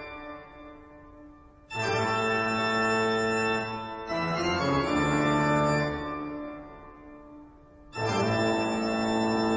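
Organ music: held chords, each struck suddenly, three times, and sustained for a couple of seconds before fading away.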